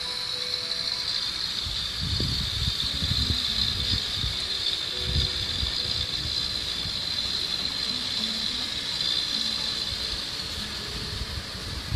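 Sumitomo SH210 hydraulic excavator's diesel engine working under load, surging in the low end about two and five seconds in, over a steady high-pitched hiss.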